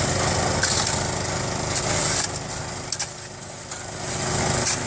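A small engine running steadily, quieter for a second or two in the middle before picking up again.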